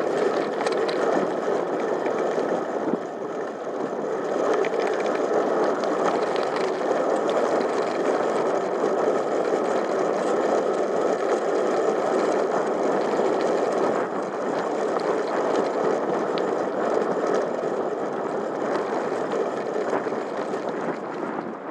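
Steady rushing noise from riding a bicycle along a tarmac lane: wind on the microphone and tyre noise, with faint rattles and clicks from the bike.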